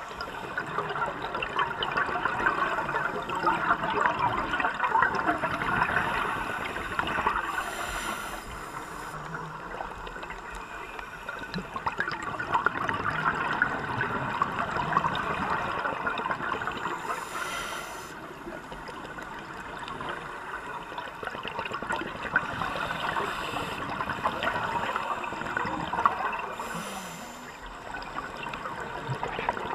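Scuba breathing heard underwater: exhaled regulator bubbles gurgling and crackling, swelling and fading with each breath. Three brief hisses come about nine seconds apart.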